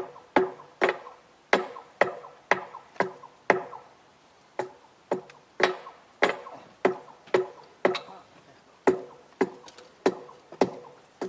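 Sledgehammer blows on a steel rail at a freshly poured thermite weld, knocking away the mould. There are about two strikes a second, each with a short ringing tone, and a brief pause a few seconds in.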